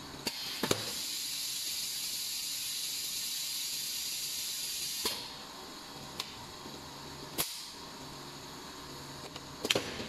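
Pneumatic cylinders on a PVC refrigerator door gasket welding machine clacking as they actuate, with a steady hiss of compressed air that stops after about five seconds with a clack. A few more sharp clacks follow, the last ones in a quick cluster near the end, over a low steady machine hum. This is the heat-and-press stage, with the heater plate withdrawing and the gasket ends being pressed together.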